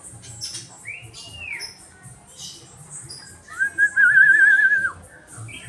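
Caged songbird calling: scattered short, high chirps and an arching note about a second in, then a long warbling whistle that wavers quickly in pitch for about a second and a half.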